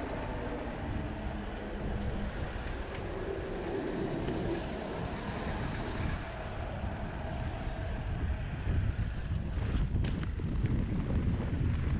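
Mountain bike rolling downhill on asphalt: steady wind noise on the camera microphone with tyre noise beneath it, growing a little louder toward the end, and a couple of light clicks from the bike near the end.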